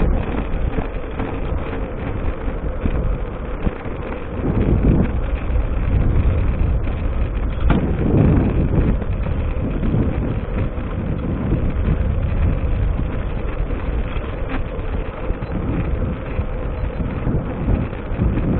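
Wind rushing over the microphone of a handlebar-mounted camera on a moving mountain bike, steady, with stronger gusts about four and eight seconds in.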